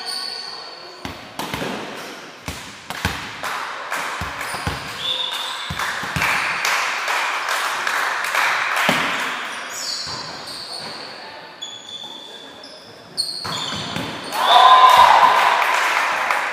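A volleyball rally in an echoing sports hall: the ball is struck again and again, with players' feet and calls on court. About fourteen seconds in, the players burst into loud shouts as the point is won.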